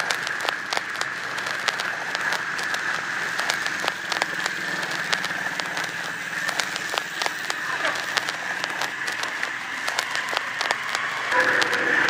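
Plastic squeegee card scraping over a laminated vinyl sticker as it is pressed down, giving many irregular crackling clicks over a steady hiss.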